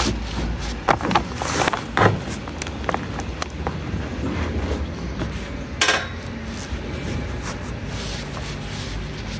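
Handling knocks and clacks of a rigid GRP (fibreglass) drip trim being shifted and pressed into place along the edge of an OSB roof deck, a few sharp knocks in the first two seconds and a louder one about six seconds in.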